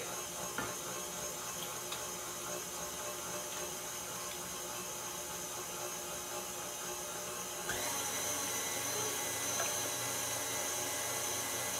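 Electric stand mixer running steadily with its wire whip attachment as whipping cream is poured gradually into the bowl. The sound shifts and grows a little louder a bit under eight seconds in.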